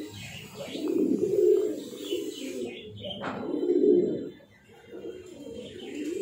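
Pigeons cooing: a low cooing phrase about every two and a half seconds, with faint high bird chirps in between.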